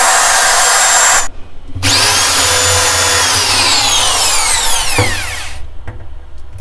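Corded electric drill boring screw holes to mount a drawer channel. It runs, stops briefly just over a second in, then starts again with a whine that slowly falls in pitch before it cuts out near the end.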